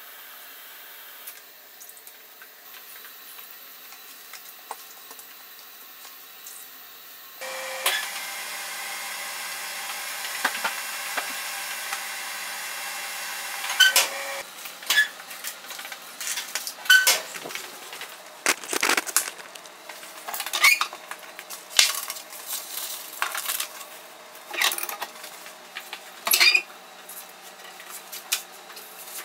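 Steady hiss of running water, louder from about a quarter of the way in. Then, through the second half, many sharp clicks and knocks of trays, a cabinet door and paper being handled.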